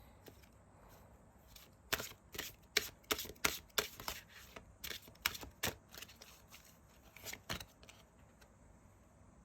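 Tarot cards being shuffled and handled: a quick run of about a dozen sharp card snaps over five or six seconds, starting about two seconds in.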